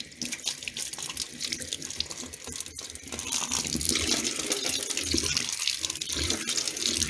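Water running from a tap and splashing, getting louder about three seconds in.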